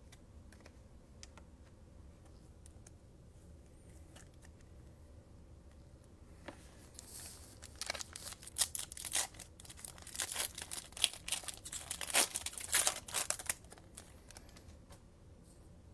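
Foil trading card pack being torn open and crinkled in quick bursts of ripping for about seven seconds, starting about six seconds in. Before that there are only faint clicks of cards being handled.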